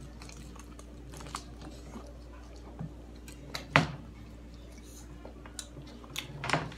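Close-up eating sounds of corn on the cob coated in crushed Takis: scattered crunchy bites and chewing, the sharpest crunch a little under four seconds in and a few more near the end.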